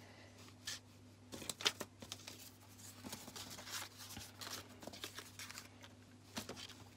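Card cut-outs and paper being handled and trimmed with a craft knife on a tabletop: faint, scattered rustles and scrapes, over a low steady hum.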